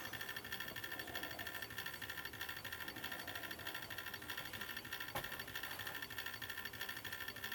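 Faint, quick, even ticking of a small pulse motor's make/break switch contacts opening and closing as its CD rotor spins, with one sharper click about five seconds in.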